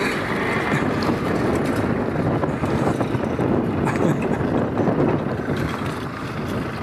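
Land Rover Defender driving slowly past and away on a gravel track: engine running, with the tyres crunching over loose stones as a steady run of many small ticks. It fades slightly near the end as it pulls away.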